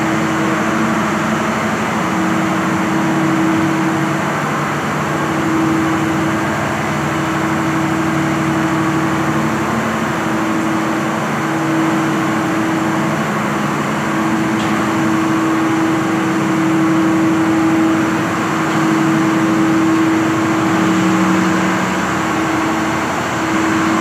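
Freshly overhauled Cummins diesel engine running at a steady speed: a continuous drone with a steady hum.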